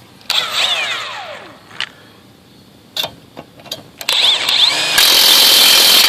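Kobalt 24V cordless half-inch impact wrench working a truck's lug nut. A short first run spins down with a falling whine, then a few clicks. About four seconds in, a longer run spins up and goes into steady, loud hammering.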